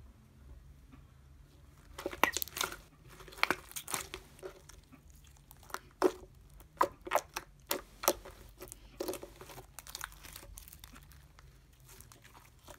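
Pearl slime being squished and pressed by hand, making irregular sticky clicks, pops and crackles. The clicking starts about two seconds in and comes in quick clusters.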